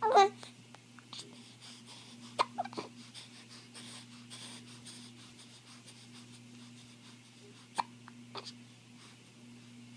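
Hiccups: a short high vocal sound sliding down in pitch at the start, the loudest thing here, then sharp hiccups about two and a half seconds in and twice more near eight seconds, over a faint steady hum.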